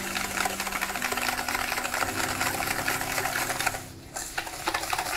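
Wire whisk beating a sugar mixture in a stainless steel mixing bowl: a fast, steady clatter of the wires against the metal, with a brief pause about four seconds in before it starts again.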